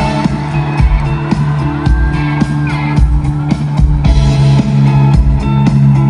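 Live band playing with no vocals: an electric guitar line over bass guitar and a steady drum beat.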